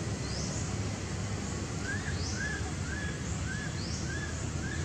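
Birds calling over a steady low background rumble: a short rising chirp repeats about once a second, and from about two seconds in a quick run of short arched notes joins it, about three a second.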